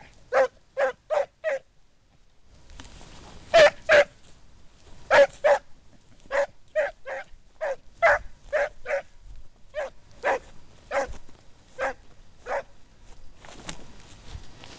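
A hound barking on a hare's scent, giving tongue in about twenty short, sharp barks that come in uneven runs, with a pause of about two seconds near the start.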